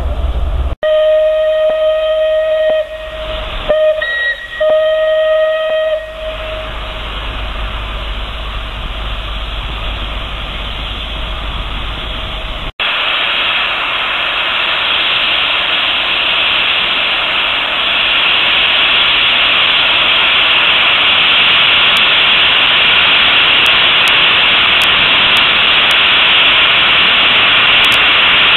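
Steam whistle of Southern Railway Battle of Britain class Pacific 34067 Tangmere blown twice, a longer blast and then a second one after a brief toot. After a cut it gives way to a loud, steady hiss of escaping steam that builds over several seconds as the engine starts away with clouds of steam blowing out at rail level.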